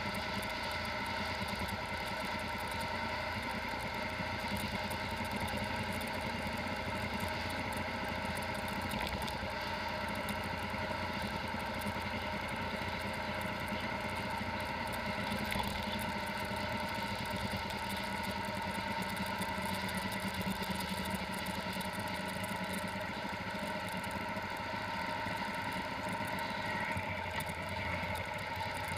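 Motorcycle engine running steadily at cruising speed, heard from a camera mounted on the bike. It holds an even drone of several constant pitches throughout.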